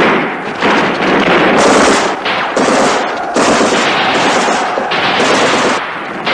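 Dense, continuous machine-gun and rifle fire, a loud rattle of overlapping shots that shifts abruptly in loudness and sharpness several times.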